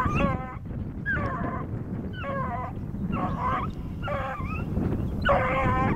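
A trailing hound baying in short, repeated calls, about one a second, as it works a scent line.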